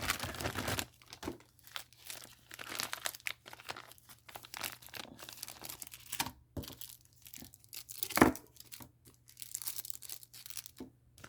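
Plastic packaging crinkling and rustling in short, irregular crackles as items are handled and pulled out of a bag, with one sharper knock about eight seconds in.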